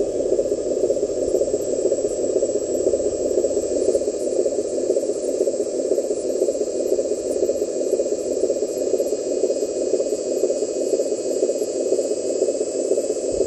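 Electric motor and gearbox of a model RC dump truck running steadily as it drives over rough dirt and rock.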